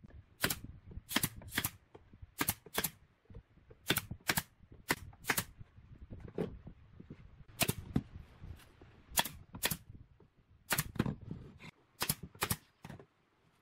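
Pneumatic brad nailer firing brads into pine boards: over a dozen sharp shots, many in quick pairs, with short pauses between groups.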